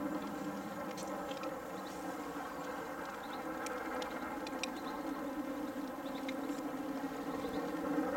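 LMS Royal Scot class 4-6-0 No. 46115 "Scots Guardsman" working hard in the distance, its exhaust a steady far-off roar. A few faint high chirps come now and then.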